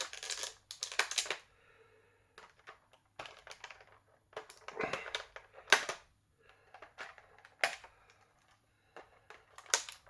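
Irregular plastic clicks and rustling as wire twist ties are untwisted and pulled free from a toy figure in its plastic packaging, with a few sharper clicks among them.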